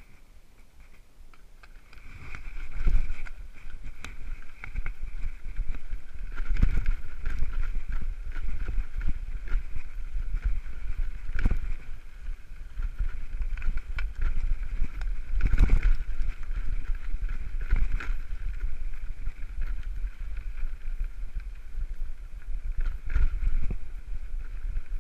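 Steel-frame touring bike rolling over a rough gravel road: a low rumble of wind on the microphone and tyres on gravel, with repeated knocks and rattles over bumps. A steady high-pitched whine comes in about two seconds in and holds on.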